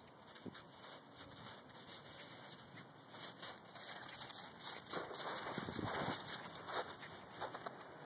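Footsteps crunching in crusty snow, an irregular crackle of many small steps that grows louder about five seconds in.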